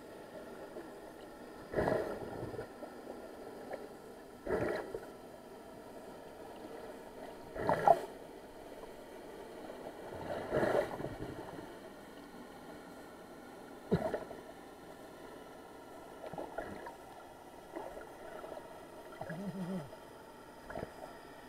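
Water splashing and sloshing around a camera held at the sea's surface, in short bursts every few seconds over a low steady hiss.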